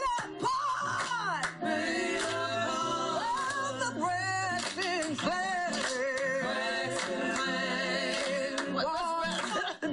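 Music with singing: long held vocal notes that waver with vibrato, over a steady low part.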